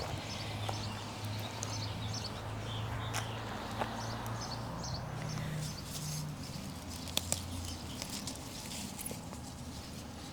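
Small stones and lava rock clicking and scraping as a weed is dug out of gravel by hand, in irregular ticks, over a low steady hum.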